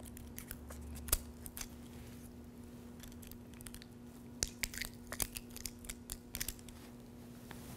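Faint crinkling and peeling of a sealed plastic communion cup being opened by hand, in a few short sharp crackles: one about a second in, then a cluster in the middle to later part.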